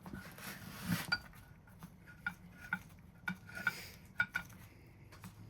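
A metal tool clinking and scraping against an old vise while chipping off thick paint and body filler: about a dozen sharp metallic clicks that ring briefly, with two short scraping swishes.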